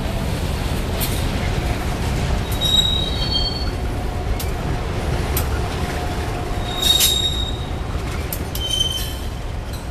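Freight train of covered steel coil cars rolling past: a steady rumble of wheels on rail with rapid clicking. Brief high-pitched wheel squeals come about three seconds in, louder around seven seconds, and again near nine seconds.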